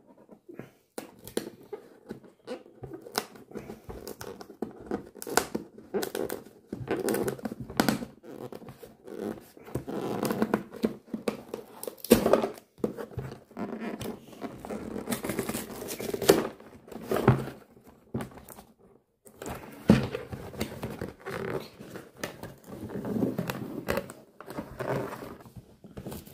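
Cardboard toy box being handled and opened by hand: repeated tearing, scraping and rustling of cardboard, with short knocks as the box is turned and set on the table.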